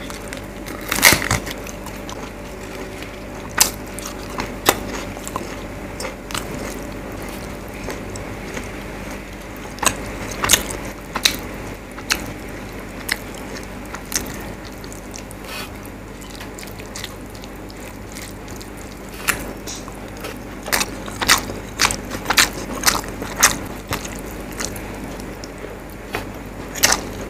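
Close-miked eating by hand: chewing with wet mouth clicks and smacks, and a loud crisp crunch of papad being bitten about a second in. The clicks come scattered and grow thick near the end, over a steady low hum.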